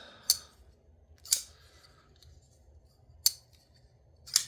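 Oz Machine Company Roosevelt folding knife blade snapping open and shut against its detent: four sharp metallic clicks, roughly a second or two apart.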